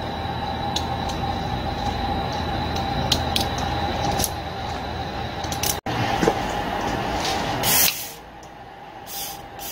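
Aerosol carburettor cleaner sprayed onto a chainsaw carburettor in two short hissing blasts near the end, the first the loudest sound here. Before that there are a few light clicks of the parts being handled over a steady background hum.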